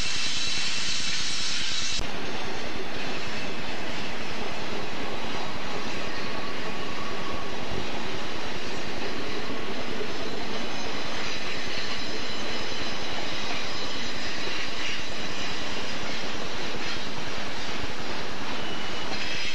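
Diesel locomotives of a BNSF double-stack intermodal train working upgrade, a steady heavy engine drone mixed with the rumble of the passing train. The sound changes abruptly about two seconds in.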